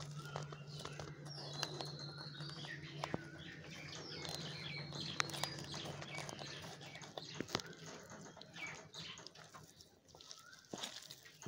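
Small birds chirping in short repeated calls, with a few sharp clicks and a low steady hum that fades out after about seven seconds.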